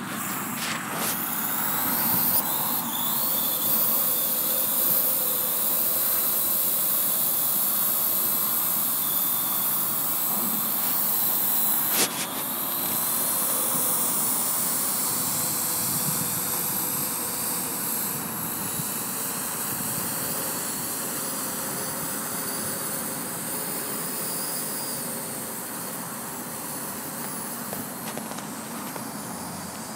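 AR.Drone 2.0 quadcopter's motors and propellers whirring in flight with a steady high whine. The sound swells about two seconds in as it lifts off, with a sharp click about twelve seconds in.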